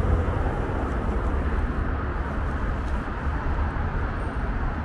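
Steady road traffic noise with a heavy low rumble.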